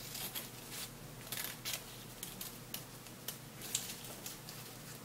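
Small pink-handled scissors snipping through a sheet of metallic flash tattoo paper: a quick, irregular series of short, faint snips.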